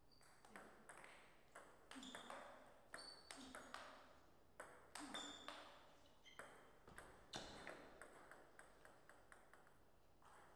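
Table tennis rally: the ball clicking off the paddles and bouncing on the table with short bright pings, a quick run of hits that stops about nine seconds in.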